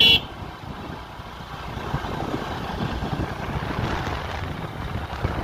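Small 100 cc motorcycle running along the road, heard from the pillion seat as a steady engine and wind rumble. A short, sharp, loud noise comes right at the start.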